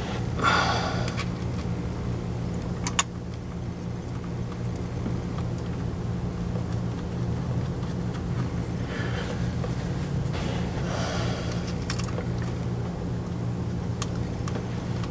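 A steady low hum underneath, with a few sharp clicks from hands and parts being worked on a transmission's valve body, the loudest about three seconds in. A few heavy breaths near the start and later on.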